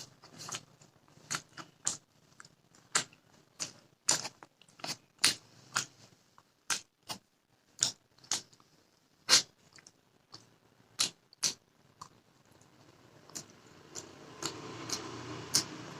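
A person chewing food close to the microphone, with sharp wet mouth clicks and smacks about one or two a second. A softer continuous rustle joins in near the end.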